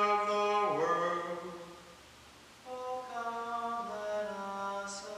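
Unaccompanied voice singing a slow, chant-like hymn with long held notes. One phrase ends about a second in with a falling slide, and after a short pause the next phrase begins.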